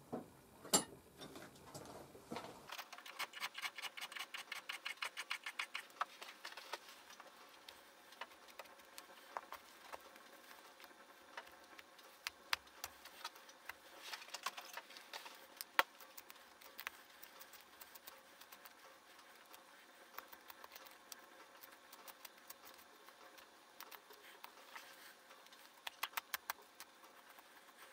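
Faint scraping and clicking from a thin-bladed knife being worked by hand. A quick run of even ticks comes a few seconds in, followed by scattered small clicks and scrapes.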